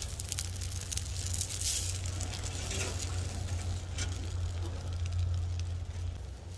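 Eggs sizzling in a cast-iron skillet over a crackling wood fire, with a steady low rumble underneath.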